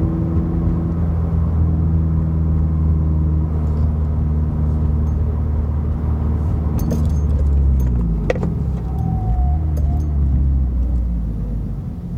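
2017 Subaru WRX's turbocharged flat-four, fitted with a Grimmspeed catted J-pipe and Carven cat-back exhaust, droning steadily at a cruise. About eight seconds in, the engine note drops and wavers, with a few sharp clicks and rattles. It then settles into a lower, quieter drone near the end.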